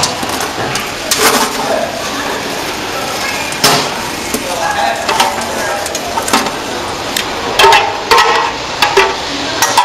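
Stainless-steel popcorn machine kettle being tipped to dump a freshly popped batch: popcorn rustling and spilling onto the cabinet floor, with a series of sharp metal clanks and knocks from the kettle and its dump handle, over a steady hiss.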